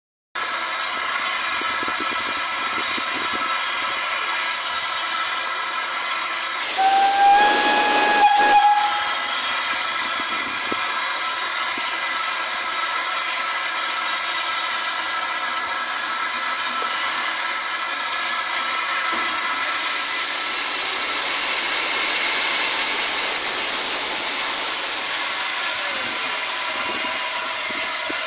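Polish Railways TKp-class 0-8-0T steam tank engine hissing steadily as it stands in steam. It gives one whistle blast of about two seconds some seven seconds in. In the last part the hiss grows louder and fuller as steam billows around the engine.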